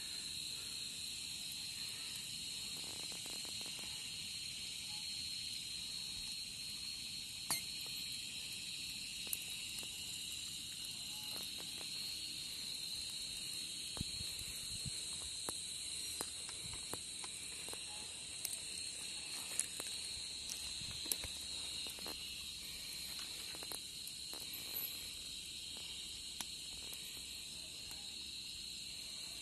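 Dusk chorus of insects: a steady, high-pitched shrill made of several constant tones. Scattered sharp clicks and snaps run through it.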